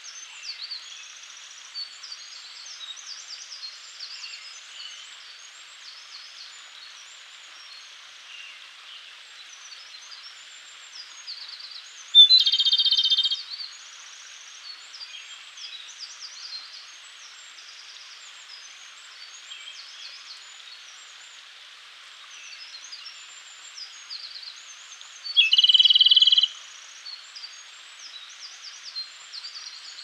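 Japanese robin singing: two loud song phrases about thirteen seconds apart, each a rolling trill lasting about a second. Behind them are faint chirps of other birds and a steady hiss.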